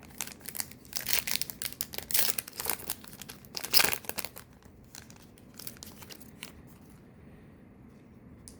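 Foil wrapper of a Topps Chrome trading-card pack crinkling and being torn open: a run of crackling rustles for about four seconds, loudest near the end of the run, then lighter rustling and ticks as the cards are handled.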